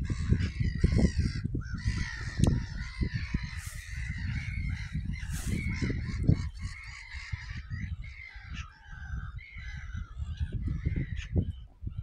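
A flock of gulls calling, many overlapping cries, with wind buffeting the microphone in gusts.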